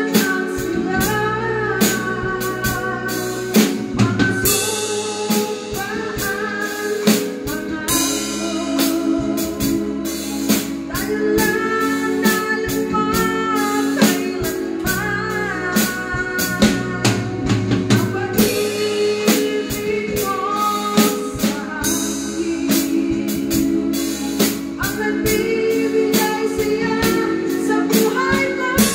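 A woman singing a song live, with a drum kit played with sticks keeping a steady beat under sustained instrumental chords.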